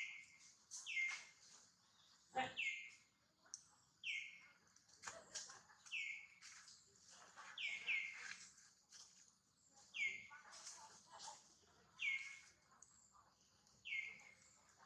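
A bird calling over and over: a short falling chirp about every one to two seconds, with scattered faint clicks and one sharper click about two and a half seconds in.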